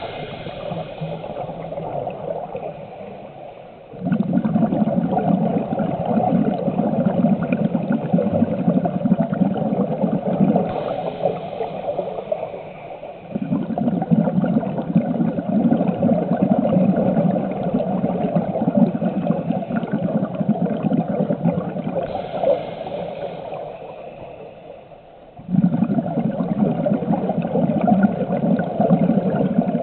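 Scuba diver breathing through a regulator underwater: a brief hissing inhale, then a long rumble of exhaled bubbles that starts suddenly. The cycle repeats about every 10 seconds, three times.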